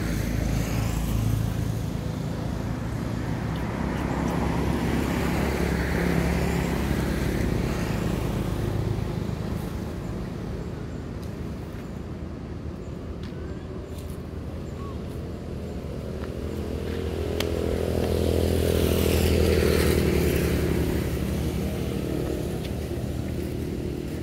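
Motor vehicle engines passing by, their sound swelling and fading; the loudest pass comes about three quarters of the way through.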